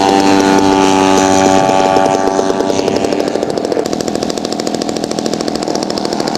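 Engine of a radio-controlled scale model airplane running steadily, a pitched drone with a fast, even beat that comes through more plainly after the first couple of seconds.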